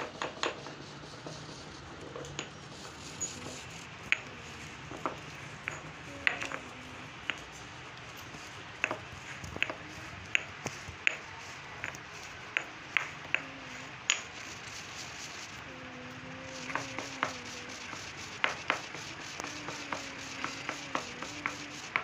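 Stone pestle grinding ajwain (carom) seeds in a marble mortar: irregular sharp knocks of stone on stone, one to three a second, as the seeds are pounded and ground into powder.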